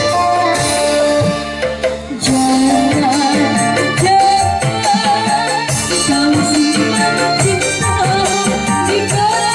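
Live band music: electric guitar, keyboard and kendang hand drums. A woman's voice sings a wavering, ornamented melody into a microphone over the band. The music dips briefly before two seconds in.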